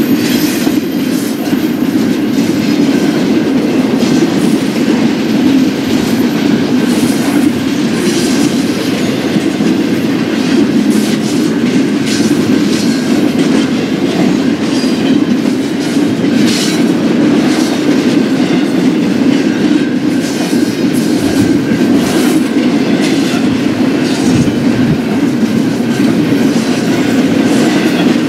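BNSF intermodal stack train's cars rolling past with a steady rumble and scattered clicks of wheels over the rail joints.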